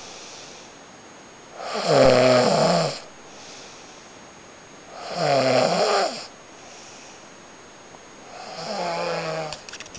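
A person snoring in sleep: three loud snores, each about a second and a half long and about three seconds apart, the last one weaker. Quiet breathing between them, and a few faint clicks at the very end.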